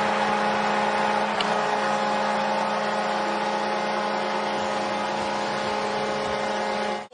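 Arena goal horn blaring a long, steady, unchanging chord over a cheering crowd, the signal of a home-team goal.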